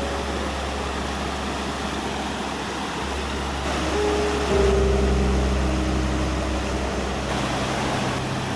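Steady rush of a fast-flowing river. Faint held music tones come in about four seconds in.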